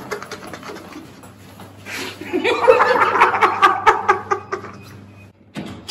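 A man laughing and chuckling, loudest from about two seconds in, with quick footsteps in room slippers.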